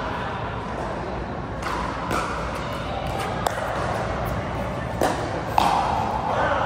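Pickleball paddles striking the plastic ball in a rally: several sharp pops a second or so apart, ringing in a large indoor hall.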